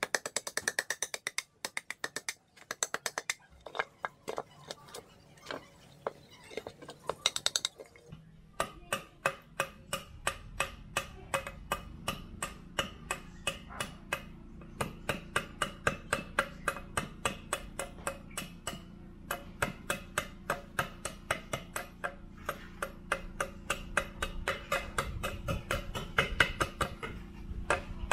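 Steel blade chopping and scraping out the inside of a wooden bowl blank in quick, short strokes, about three a second. From about eight seconds in, a steady low hum runs underneath.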